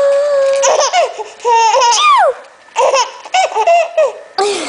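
A baby's high-pitched laughter in two bursts of squealing giggles, the first ending in a long falling squeal. Near the end a lower voice slides down in pitch.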